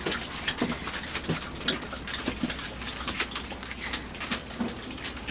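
Five-week-old Labrador puppies scrabbling and tussling, with many quick scratching clicks and short, soft low grunts and squeaks.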